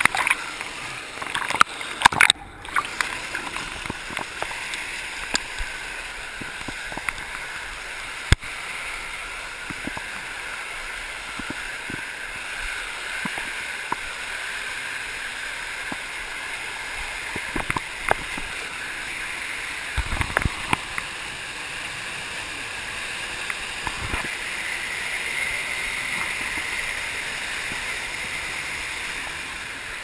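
Waterfall water rushing steadily close to the camera, with a few sharp knocks in the first three seconds and again about two-thirds of the way through.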